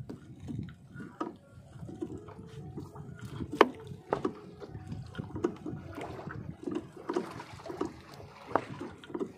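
Fishing net being hauled wet over the side of a small boat: water splashing and dripping, with irregular knocks and clatters from the net and gear, and a faint steady hum underneath.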